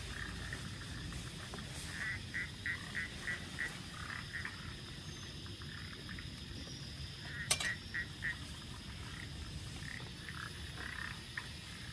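Frog calling in runs of short, evenly spaced croaks, about three a second, over steady rain noise. A single sharp click about two-thirds of the way through.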